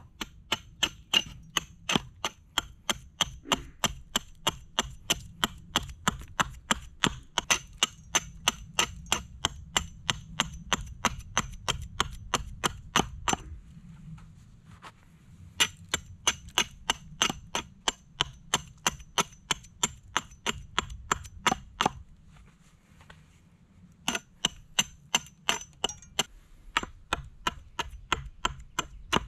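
Estwing hatchet chopping a piece of wood on a stump: quick, even strokes about three a second, each a sharp knock with a metallic ring, stopping briefly twice.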